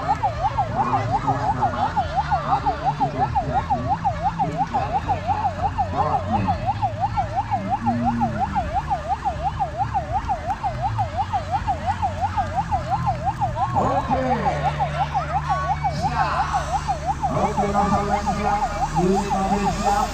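Fire truck siren wailing rapidly up and down, about three sweeps a second, over the steady rumble of the truck's diesel engine running. The siren's even sweep turns rougher in the last few seconds.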